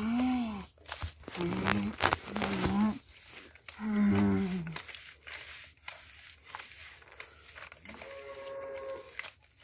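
A child's voice imitating a tractor engine with hummed vroom sounds, four pushes of under a second each in the first five seconds, the pitch rising and falling like revving, and a higher, steadier hum about eight seconds in. Between them come soft clicks and squelches of the toy tractor being shoved through wet mud.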